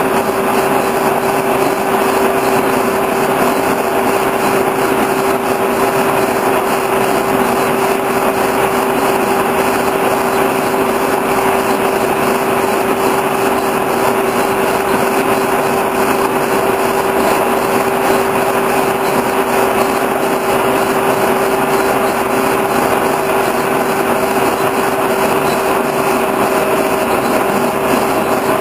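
Horizontal boring mill running steadily with one steady pitched tone over it, its spindle swinging a turning tool around a stationary shaft end on a final cut.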